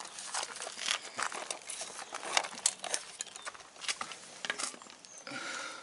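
Plastic fairing panels of a KTM Duke 390 being handled and pulled loose by hand: an irregular run of clicks, crackles and rustling of plastic.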